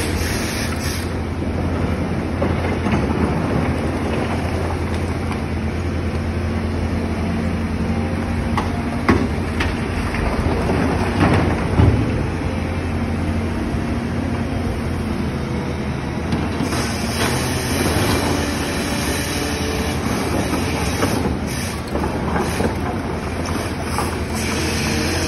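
Volvo crawler excavator's diesel engine running steadily under working load as it digs and swings, with knocks and clatter of broken rock in the bucket, sharpest about nine seconds in and again around eleven to twelve seconds in, as the load is dropped into the dump truck.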